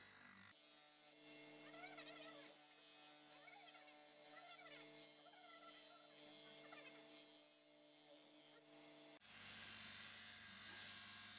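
Faint steady electric hum, the bench buffing wheel's motor running, with faint warbling sounds over it through the middle. The sound changes abruptly about half a second in and again about nine seconds in.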